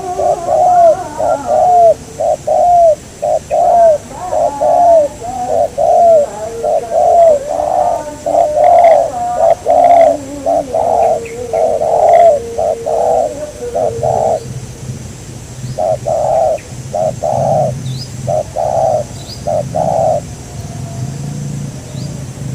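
Spotted dove cooing loudly: a long, quick run of short coos for about fourteen seconds, then a few spaced coos that stop about twenty seconds in. A low hum comes in partway through, and a few faint high chirps are heard near the end.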